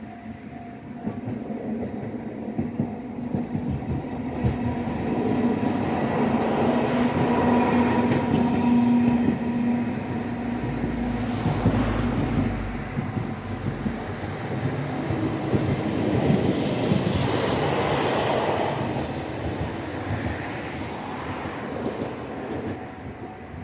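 Tosaden Kotsu streetcar passing over a level crossing: wheels clacking over the rail joints and crossing, with a steady motor hum, swelling to its loudest in the middle and fading toward the end. The crossing's warning bell rings through it.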